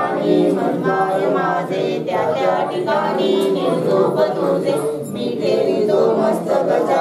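Devotees singing an aarti, a Hindu devotional hymn, together in chorus.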